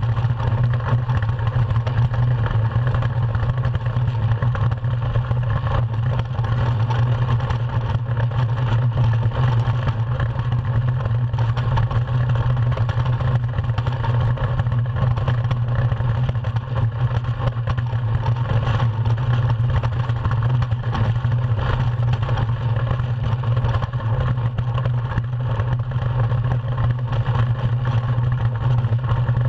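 Iceboat running fast over ice: a steady, loud rumble from the steel runners on the ice and the hull, mixed with wind noise on the onboard camera.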